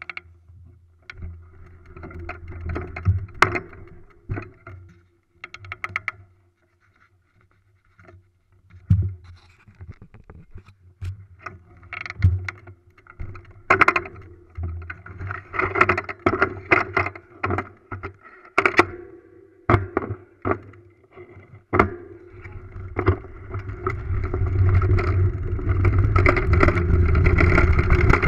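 Mountain bike rolling along a dirt trail: the knobby front tyre crunching over leaves and roots, with the bike rattling in scattered sharp clicks and knocks. Over the last few seconds a steady rushing noise with a low rumble builds as the bike picks up speed.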